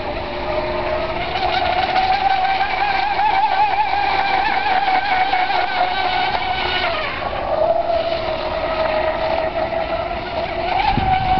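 Brushless electric motor of a 12-cell RC catamaran hydroplane running at speed: a high, wavering whine with several overtones that drops in pitch about seven seconds in and climbs again near the end.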